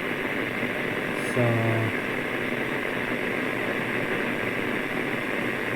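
Steady hiss of static from a Xiegu G90 transceiver's speaker in FM mode, tuned where no station comes through.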